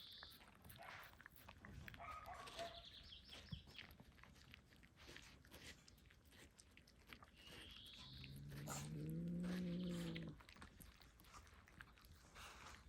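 Pets eating watermelon: faint wet chewing and crunching, with short high squeaks and, about eight seconds in, one drawn-out low animal call lasting about two seconds, the loudest sound.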